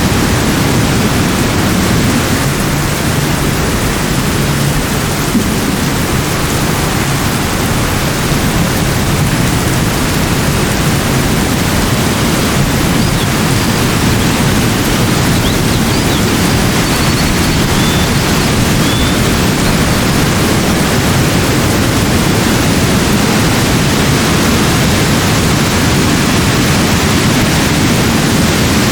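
Steady, even rush of water, with no rise and fall, and a few faint high chirps over it.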